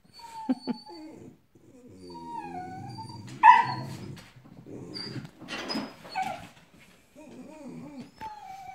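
Dogs whining and whimpering in sliding, high-pitched cries, with one loud yelp about three and a half seconds in. They are crying after a squirrel they can see.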